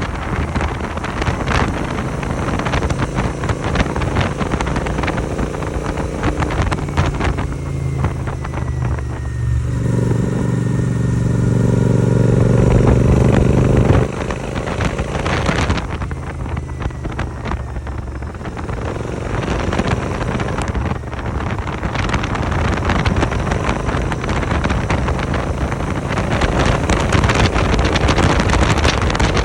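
650 twin motorcycle engine running through an aftermarket AEW 101 exhaust while riding, with wind on the microphone. About ten seconds in the engine note grows louder under throttle, then drops suddenly about fourteen seconds in as the throttle closes.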